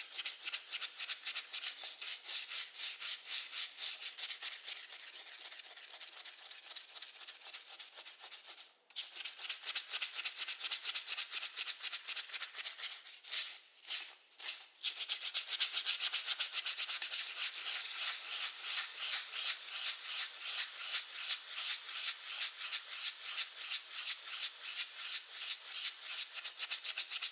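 Rapid back-and-forth scrubbing, a hissing rub at roughly four strokes a second. It stops briefly just under nine seconds in and breaks off a few times around fourteen seconds before carrying on.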